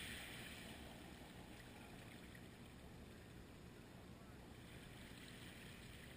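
Faint, steady wash of ocean surf on a beach, a wave's hiss dying away in the first second.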